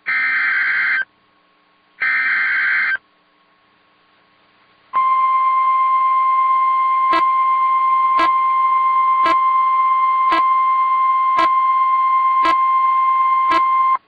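NOAA Weather Radio Emergency Alert System (SAME) header: two one-second bursts of warbling digital data tones about two seconds apart. After a two-second pause comes the steady 1050 Hz Weather Radio warning alarm tone for about nine seconds, with a faint tick about once a second. Together they signal the start of a new warning broadcast, here a severe thunderstorm warning.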